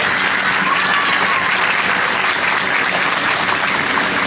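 Small group of wedding guests applauding, dense steady clapping, as the couple are pronounced husband and wife.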